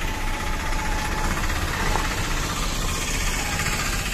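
Tata 1512 truck's diesel engine running with road noise, heard from inside the cab while driving; a steady drone.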